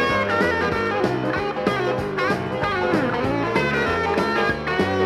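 Instrumental break of an upbeat song with no singing: a band playing a bass line and melody over drums at a steady beat.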